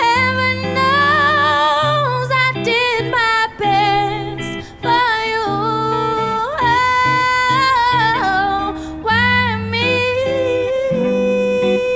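A woman singing a slow melody into a microphone, holding notes with vibrato, accompanied by a live band with a low bass line and electric guitar.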